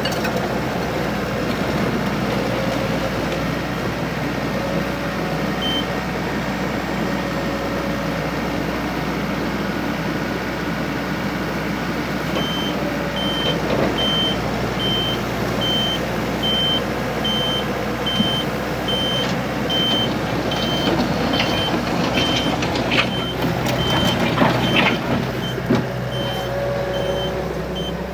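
Takeuchi TL250 track loader's diesel engine running steadily. From about halfway through, its reversing alarm beeps evenly, a little faster than once a second, and a few clanks sound near the end.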